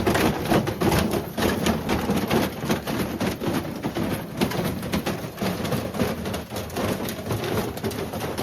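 Washing machine clattering and banging loudly, a dense run of rapid, irregular knocks and rattles over a low rumble.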